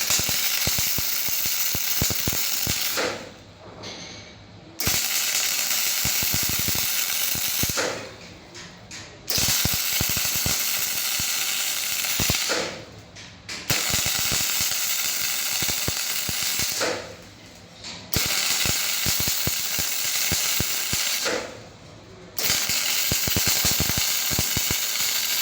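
A motorcycle side-stand welding machine running through repeated weld cycles: six crackling welds of about three seconds each, separated by short quieter pauses with light mechanical clicks.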